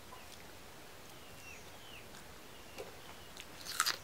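Faint background hiss with a few short, falling chirps and small clicks, then a crisp crunch near the end as a piece of raw onion is bitten into.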